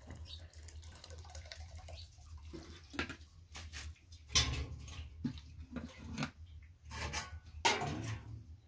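Soft slaps and rustling of flatbread dough being handled and stretched over a stuffed bread pad at a hearth, with several louder slaps, over a low steady rumble.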